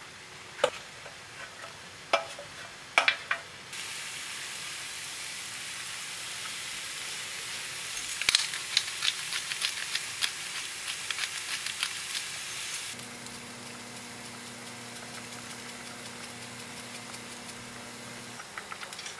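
A few sharp utensil clicks, then food sizzling in a hot pan from about four seconds in, crackling and popping hardest in the middle. Near the end the sizzle gives way to a quieter steady hum.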